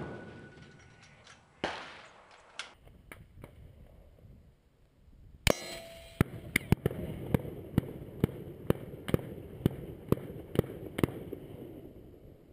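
The echoing tail of a 7mm-08 rifle shot dies away, followed about a second and a half in by a single fainter crack. After a change of scene there is a steady outdoor hiss with a run of sharp cracks and clicks, about three a second.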